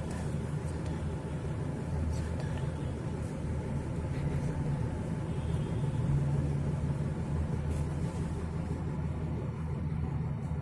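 Steady low background rumble with a faint steady hum, and a few soft clicks scattered through it.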